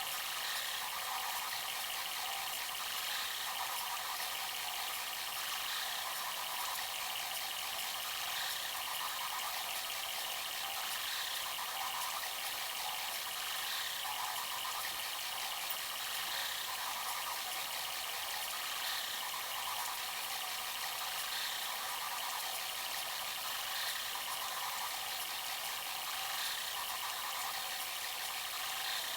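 Bambu Lab A1 3D printer running a print: a steady whir of fans and stepper motors, with a rattling movement sound that swells about every two and a half seconds as the print head repeats its moves.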